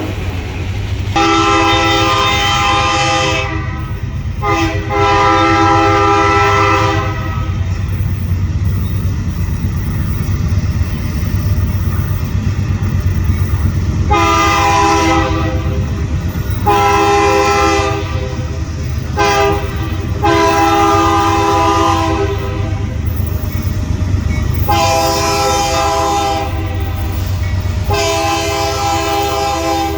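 Diesel locomotive air horn blowing repeated blasts over the steady rumble of a running train. After two long blasts there is a pause. Then comes a long, long, short, long sequence, the standard grade-crossing signal, and two more long blasts near the end.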